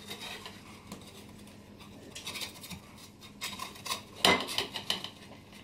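Black plastic spatula scraping and knocking against a round baking tin while prising out a slice of baked cookie, with a sharper clatter about four seconds in.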